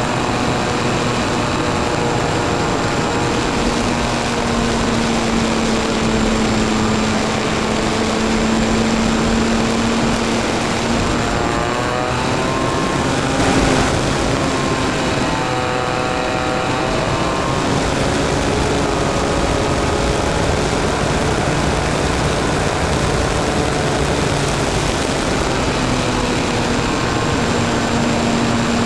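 The engine and propeller of a small propeller aircraft, heard from a camera on board, droning steadily over rushing air noise. About halfway through its pitch drops and then climbs again.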